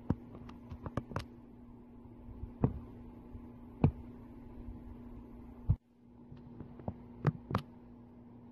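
Steady low electrical hum with a dozen scattered soft clicks and knocks; the hum drops out suddenly for a moment about six seconds in.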